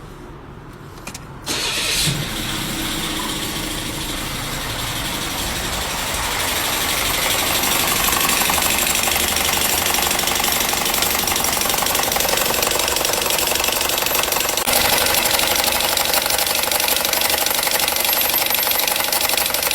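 Car engine starting about a second and a half in, then running with a loud abnormal mechanical noise that builds over the next several seconds and gets louder and harsher again near the end. The noise is one of those that can be heard from a distance, with a bearing, the turbocharger or the A/C compressor as the suspected cause.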